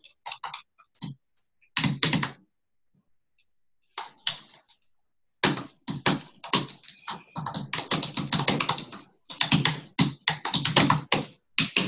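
Typing on a computer keyboard: a few short bursts of keystrokes with a pause of a few seconds, then fast, steady typing for about six seconds. The sound cuts out completely between bursts.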